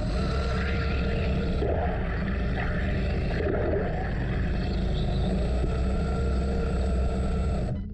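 A pair of 3D-printed screw propellers driven by brushless motors, spinning and churning water in a bathtub: a steady motor hum over rushing, splashing water that cuts off near the end.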